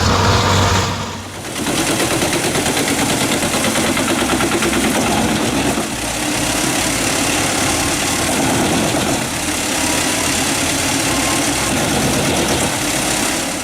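A heavy forestry machine's engine running steadily, with a brief drop and change in the sound about a second in, then steady running again.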